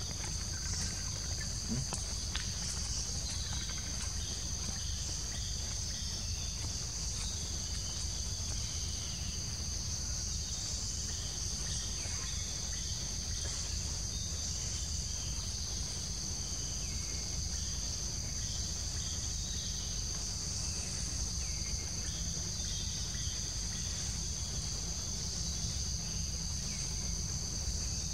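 Insect chorus: a steady high-pitched drone that does not let up, over a low steady rumble.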